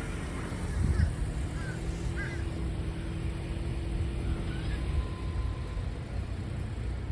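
Steady low outdoor rumble, like passing traffic or wind, with a faint steady hum in the middle and a few short bird calls about one to two and a half seconds in.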